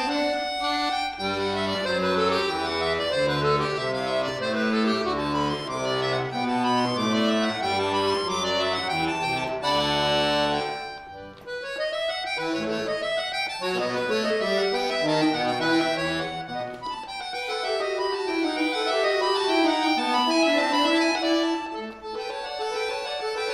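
Chromatic button accordion (bayan) played solo: fast running passages of quick notes rising and falling over lower bass notes. About ten seconds in a chord is held, then the sound drops away briefly before the runs start again.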